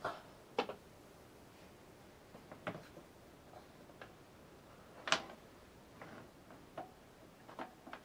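Scattered light clicks and knocks of power cables and plastic connectors being handled and plugged in on a GPU mining rig, about five in all, the sharpest about five seconds in.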